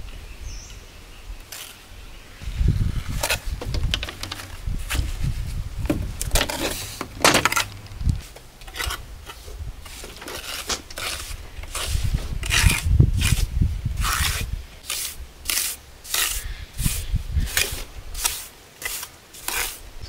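Metal trowel scraping wet cement mortar against stone, in repeated short strokes that come faster and more evenly, about two a second, in the second half, over a low rumble.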